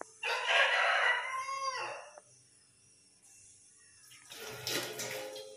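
A rooster crowing once, about two seconds long, its pitch falling at the end. Some seconds later comes a second, hissier sound.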